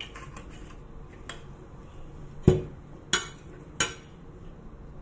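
A metal spoon clinking sharply twice against a porcelain plate while an onion, parsley and sumac salad is mixed, after a dull knock about halfway through and a few light clicks near the start.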